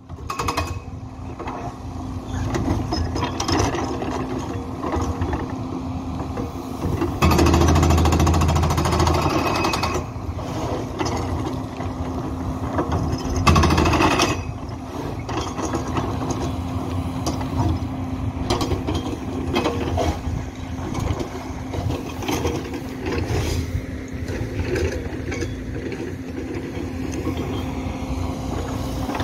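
Hydraulic breaker on a wheeled excavator pounding the concrete of a road bridge to demolish it: a rapid, continuous hammering over the steady hum of the excavator's engine. It grows louder for about two seconds some seven seconds in, and again briefly around fourteen seconds.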